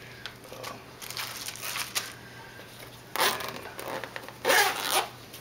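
The zip of a bag's front pocket being pulled open, with handling and rustling of the bag, in two loud strokes.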